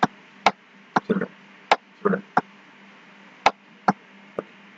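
About ten sharp computer-mouse clicks at an irregular pace, a few of them duller, over a faint steady hum.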